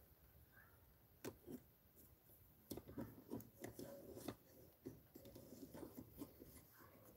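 Near silence broken by faint, irregular taps and clicks of a phone being handled close to the microphone, a fingertip tapping at the screen.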